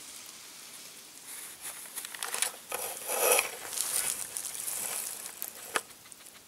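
Dry grass and leaves rustling and crackling close to the microphone, in irregular crinkly bursts for a few seconds. It is loudest around the middle, with one sharp snap near the end.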